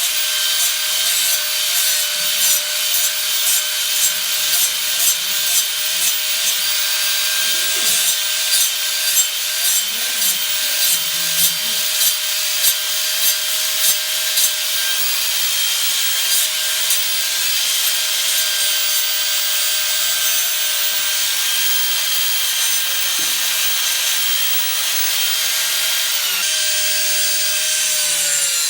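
Rhythmic sawing, about one and a half strokes a second, that stops about halfway through. Under it runs a steady machine hum that drops in pitch near the end.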